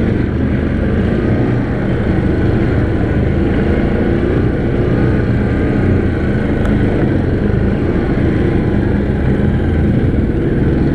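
An ATV's engine running continuously as the machine works along a rough trail, its pitch rising and falling a little with the throttle.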